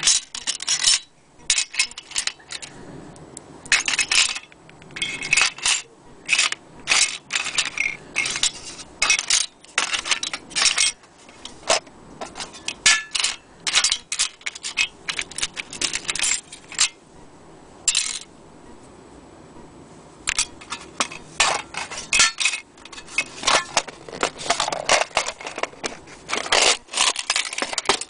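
Small metal sewing-machine attachments being handled in a metal tray: irregular sharp clinks and rattles of metal on metal, with some scraping. There is a short lull about two-thirds of the way through.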